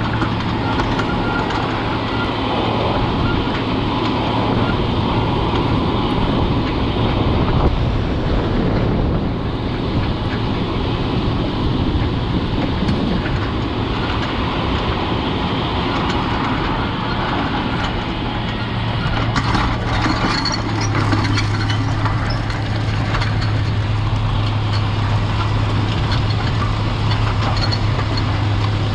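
White 4-270 four-wheel-drive tractor's Caterpillar 3208 V8 diesel running steadily under load while pulling a strip-till bar. It makes a continuous low hum whose note drops slightly about two-thirds of the way through.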